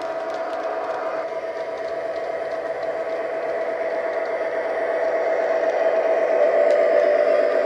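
Hornby Class 66 model's TTS sound decoder playing a diesel locomotive engine sound through its small speaker, a steady drone, with the model's wheels running on the track. It grows louder as the locomotive comes round toward the camera.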